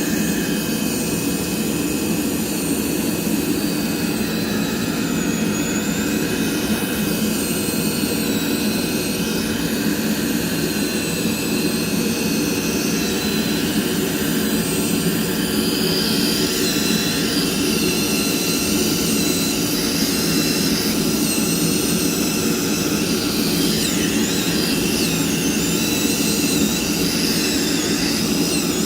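CNC circular-knife cutting machine running as it cuts denim: a loud, steady machine noise with faint high whines that wander up and down in pitch.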